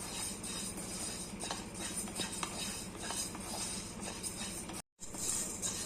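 Red rice grains dry-roasting in a hot pan with dry ginger and cardamom, giving light, scattered crackles and clicks from popping grains and stirring, over a steady low hum. A brief dropout about five seconds in.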